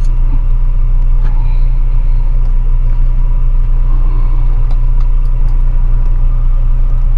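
A loud, steady low hum that does not change, with a few faint clicks over it.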